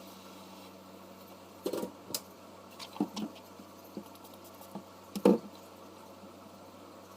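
Handling noises at a work surface: a few short clicks and knocks of small hard objects, such as tools or phone parts, being picked up and set down. The loudest knock comes about five seconds in, over a steady low electrical hum.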